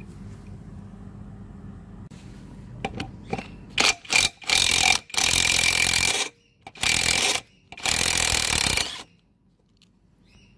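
Cordless impact driver hammering as it undoes the mower blade's centre bolt: a couple of short blips about four seconds in, then three longer runs of one to two seconds each, stopping about nine seconds in.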